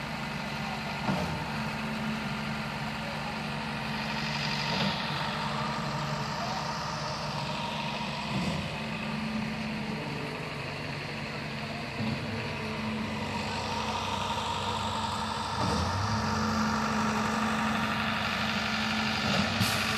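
Heavy diesel engine of a concrete boom pump truck running steadily under load, with a clunk about every four seconds as the pump cycles while pumping concrete.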